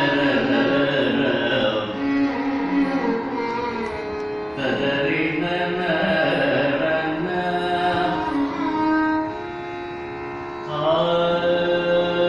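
Carnatic vocal music: a man singing with the violin shadowing his melody, both sliding and bending through ornamented notes. The music drops to a softer passage about nine seconds in, then swells back up near the end.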